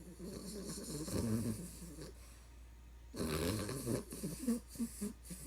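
A sleeping puppy snoring: two long snores a second apart, the second breaking into a few short breaths near the end.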